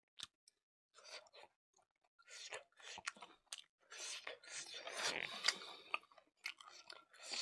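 Close-up, wet chewing and lip-smacking mouth sounds of a man eating a handful of rice and smoked pork. The sounds start about a second in as irregular clicks and smacks and are densest around the middle.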